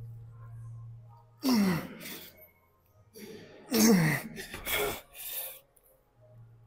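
A man grunting and exhaling hard with effort while straining through a weight-training set: two loud grunts that drop in pitch, about a second and a half and four seconds in, with forceful breaths between and after them.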